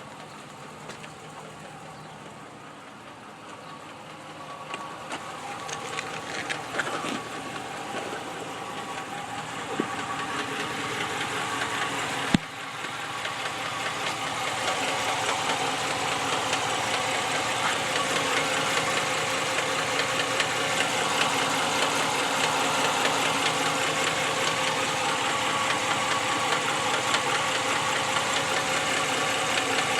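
2014 Ram 1500's 5.7-litre Hemi V8 idling with a knock from the engine, posted by the owner as an engine knock. The engine sound grows louder over the first half and then holds steady, with one sharp click about twelve seconds in.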